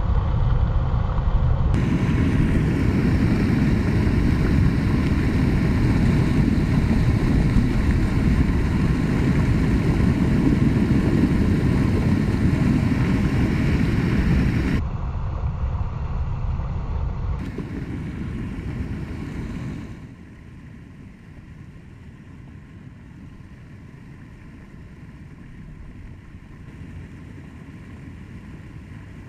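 Steady rush of a small mountain creek cascade. It is loud and deep for the first half, then drops suddenly in steps about fifteen and twenty seconds in to a quieter, thinner rush.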